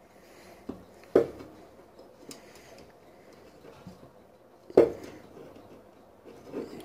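Steel locking pliers being released and handled on a tabletop: a few sharp metal clicks and clacks, the loudest nearly five seconds in.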